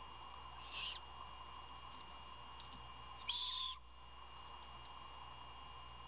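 Great horned owlet giving short raspy begging screeches, twice, the second louder, over a faint steady background drone.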